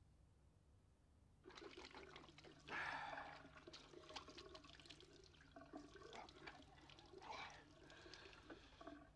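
Bathroom washbasin tap running, with water splashing as hands scoop it up to wash the face. The sound is quiet and comes in about one and a half seconds in.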